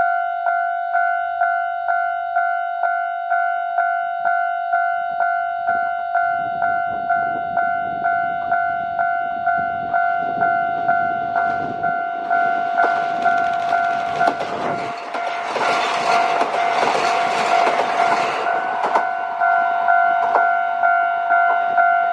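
Japanese level crossing warning bell ringing in a steady electronic clang, about two strikes a second, as a diesel train runs through the crossing. The train's rumble and wheel clicks over the rail joints build from about halfway and are loudest near the three-quarter mark, then fade under the bell.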